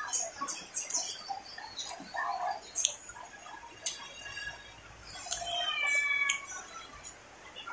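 Close-up chewing and lip-smacking of a mouthful of rice and fish offal, full of small wet mouth clicks, with a couple of sharp clicks around the middle. A short, squeaky pitched chirp about six seconds in.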